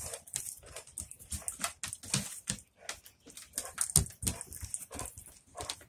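Dogs moving about on a wooden deck: irregular clicks and taps of claws and feet on the boards, with one louder knock about four seconds in.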